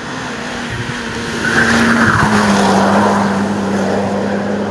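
Mitsubishi Lancer Evo VI Tommi Mäkinen's turbocharged four-cylinder engine running hard at a steady pitch, with tyres skidding loudly from about a second and a half in.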